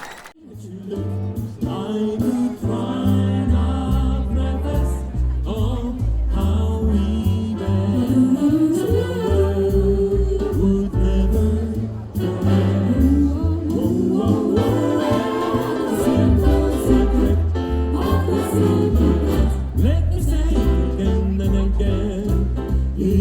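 Several voices singing together over instrumental accompaniment, with a strong bass line stepping from note to note underneath.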